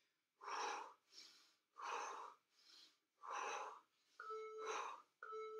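A man breathing hard in even exhalations, about one every second and a half, in time with scissor kicks. Near the end an interval timer beeps twice, a second apart, counting down the end of the work set.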